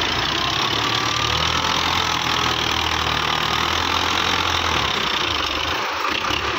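Belarus tractor's diesel engine running under load as it tries to drag a loaded trolley through mud. It holds a steady low drone that fades away near the end.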